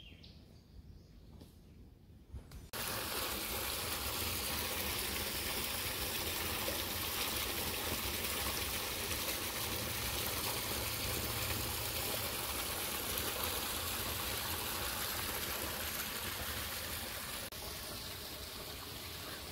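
Running water of a stream, a steady rushing that comes in suddenly about three seconds in after a quiet stretch and eases slightly near the end.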